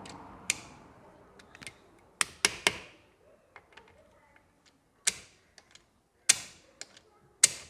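Sharp metallic clicks and clinks, a quick cluster of three about two and a half seconds in and single ones later: pliers and a kick-start shaft spring knocking against an open motorcycle engine's crankcase as the spring is hooked into place.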